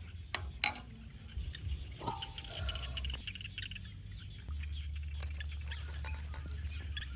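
Two sharp clinks of a metal spoon against a ceramic soup bowl near the start, with birds chirping in the background throughout. A low steady rumble comes in a little past halfway.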